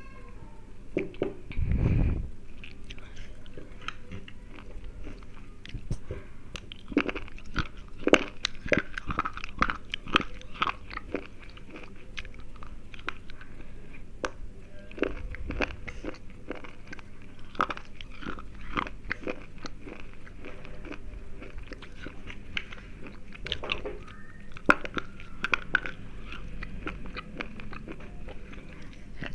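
Slate pencils being bitten and chewed close to the microphone: repeated sharp, dry crunches, with a heavy low thump about two seconds in.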